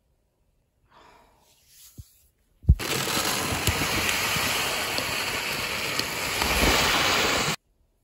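Tofu cat litter (soybean-pulp pellets) poured from a bag into an empty plastic litter tray. It starts with a thump, then gives a dense, loud hiss-and-rattle of pellets pouring for about five seconds before cutting off abruptly.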